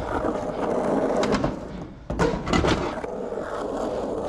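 Skateboard wheels rolling over rough concrete, a steady grainy rumble. It goes briefly quieter a little before the middle, then a sharp clack and a couple more clicks follow.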